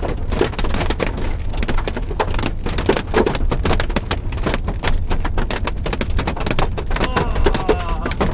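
Hailstones pelting a car, a dense, irregular clatter of hits on the body and glass over a steady low rumble.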